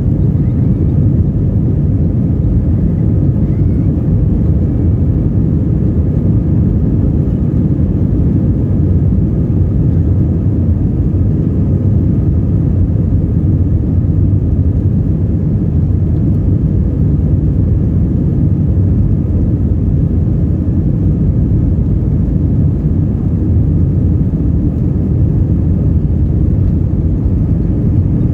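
Airbus A320 jet engines and airflow, a steady deep rumble that does not change, heard from inside the passenger cabin.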